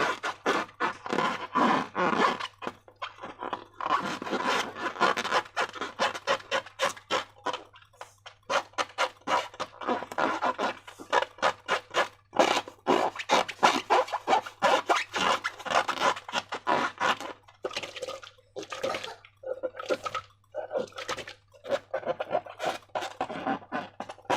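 Slime being squeezed and worked by hand: a long, irregular run of quick sticky clicks and squelches, pausing briefly a few times.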